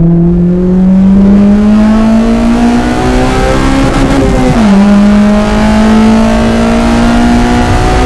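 Honda Civic Si's K20 2.0-litre naturally aspirated four-cylinder pulling hard through the gears of its six-speed manual, heard from inside the cabin. The engine note climbs steadily in pitch, drops sharply at a quick upshift about halfway through, then starts climbing again more slowly.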